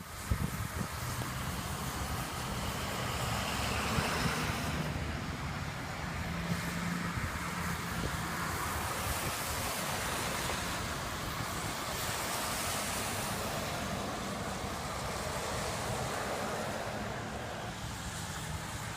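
Winter-storm wind blowing across the microphone: a steady rushing noise with a low rumble underneath.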